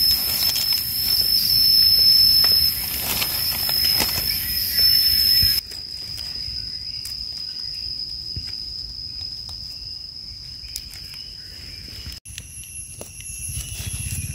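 Steady, high-pitched drone of forest insects, with faint ticks and rustles of hands working in dry leaf litter. The drone changes abruptly twice: it drops quieter about five and a half seconds in, and about twelve seconds in a different mix of higher and lower steady tones takes over.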